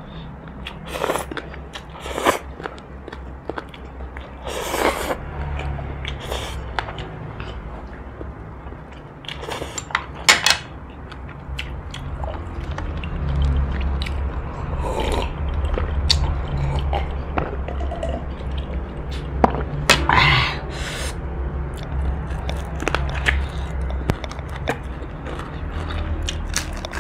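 Close-miked eating sounds: instant noodles slurped, fried chicken chewed and bitten with scattered clicks and crunches, and sips of water, over a steady low hum.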